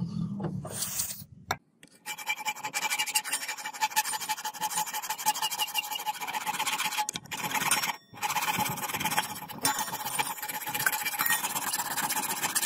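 A flat hand file rasping across the steel of a katana blade's tang shoulder in fast, continuous strokes, with a steady ringing tone underneath. Before it, a power drill's hum stops about a second and a half in.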